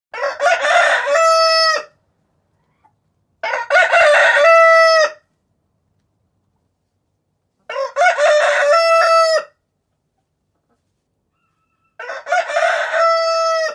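Rooster crowing four times, about every four seconds; each crow lasts under two seconds, opening rough and ending in a held, clear note.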